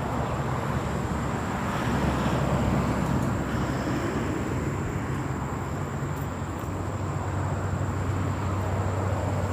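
Steady low rumble of distant vehicle traffic, swelling slightly about two seconds in, with a faint high steady tone over it.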